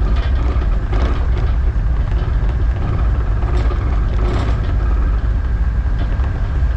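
Tugboat's diesel engines running steadily under load, a deep, even rumble.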